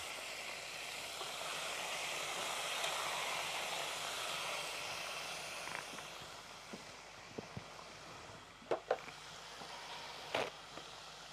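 Battered chicken strips sizzling as they fry in hot oil, a steady hiss that fades after about six seconds. A few light knocks of kitchenware follow near the end.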